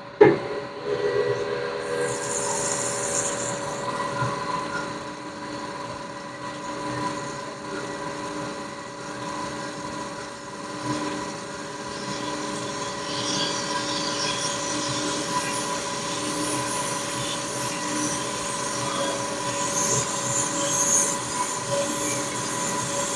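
Metalworking machine tool cutting an S44 engine block, running steadily with several held tones and a high metal-on-metal squeal, after a sharp bang right at the start.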